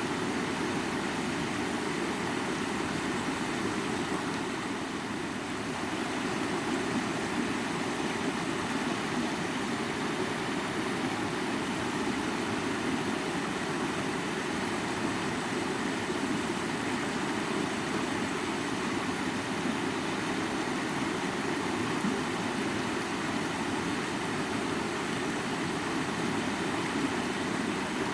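A flowing mountain river: a steady, even rush of water with no breaks.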